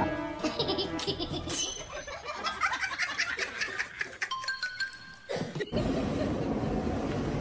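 Background music with people laughing, then a steady hiss after a sudden change about two thirds of the way in.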